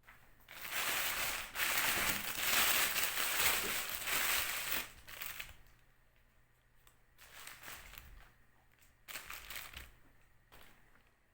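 Rustling, crinkling handling noise: a dense stretch lasting about five seconds, then shorter irregular bursts.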